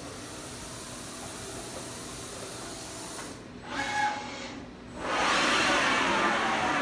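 Anderson Maxxis 3116 NC 5-axis CNC router running as its router head traverses the gantry: a steady hiss, a brief break with a whining tone about four seconds in, then a much louder rushing machine noise from about five seconds on.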